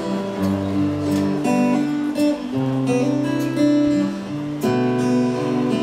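Acoustic guitar playing the opening chords of a song, strummed, with a new chord every second or so.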